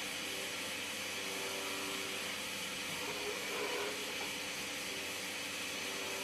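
CNC milling machine cutting a brass fitting under coolant: a steady hiss, with a faint tone that comes and goes several times.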